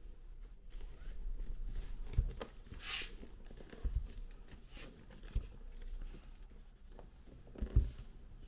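Hands handling the Mac mini's packaging: light rustling with a few soft thumps as the box and its contents are moved and set down, and a short sharper rustle about three seconds in.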